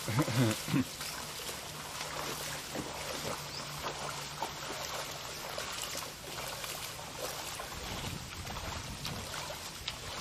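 Shallow tsunami floodwater washing and splashing around people wading through it, a steady watery rush dotted with small splashes. A brief voice at the very start.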